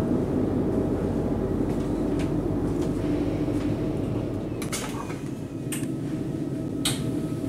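Steady hum of a Class 375 Electrostar carriage's onboard equipment while the train stands at a platform, with a faint steady whine over it. From about four and a half seconds in come a few sharp clicks, about a second apart, as the powered accessible-toilet door is opened.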